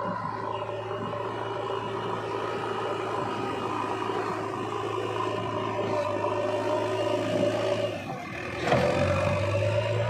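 Diesel engine of a JCB 3DX backhoe loader running steadily under load while it works in mud; about eight seconds in the engine note drops briefly, then picks back up.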